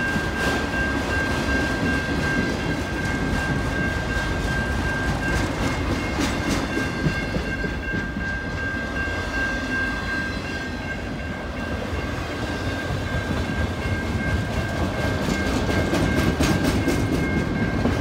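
A long freight train of autorack cars rolling past on the rails, with wheels clicking over the rail joints, more often near the end. A steady high-pitched tone runs through the rumble.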